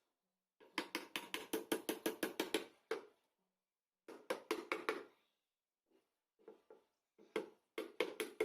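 Hammer blows on wood, striking quickly in three runs of about seven or eight sharp knocks a second: a run of about two seconds, a shorter one in the middle, and another near the end.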